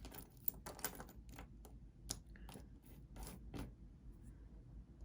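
Faint, irregular light clicks and clatter of small jewelry pieces, single earrings, being handled and moved about.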